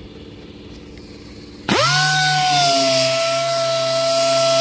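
A handheld orbital sander starts up about a second and a half in, its whine rising quickly and then holding a steady pitch as it sands the paint on a truck fender.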